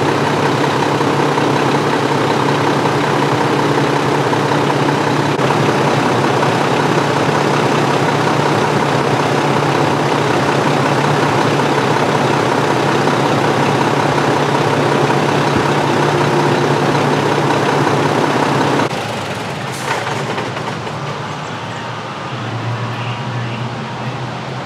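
Heavy truck's diesel engine idling steadily with a constant low hum, then dropping away suddenly near the end, leaving quieter street noise.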